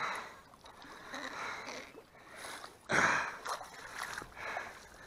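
An arrowed carp splashing in shallow water as it is hand-lined in on the bowfishing line, in several bursts with the biggest splash about three seconds in.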